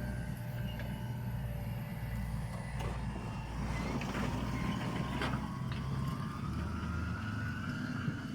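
Deutz-Fahr 6205 RShift tractor's diesel engine running steadily, with a few short clanks about halfway and a faint whine rising slowly through the second half.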